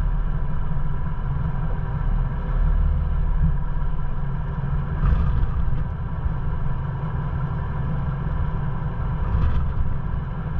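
Ford Bronco driving slowly on a sandy dirt trail: a steady low engine drone with tyre and road noise. Two brief, louder, noisier moments come about five seconds in and near the end.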